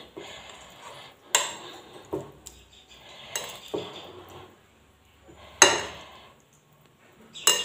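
A metal spoon stirring cauliflower florets through a thick yogurt-spice marinade in a bowl: soft scraping broken by a handful of irregular clinks against the bowl, the loudest about five and a half seconds in.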